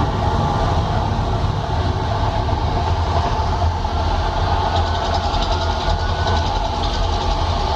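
Loud, steady low rumble of a volcano show's eruption. A faint rapid crackle joins it about five seconds in.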